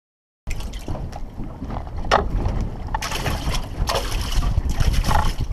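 Wind noise on the microphone over sea water splashing against a small fishing boat, a heavy low rumble that starts abruptly about half a second in.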